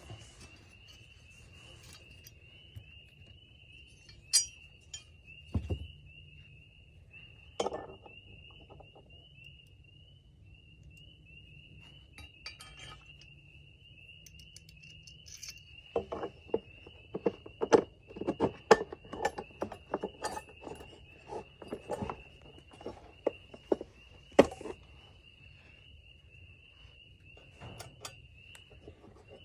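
Through bolts, lock washers and nuts being fitted and hand-tightened on an ATV console bracket: scattered metallic clinks and knocks, coming thick for several seconds past the middle. A steady high insect chirring runs underneath.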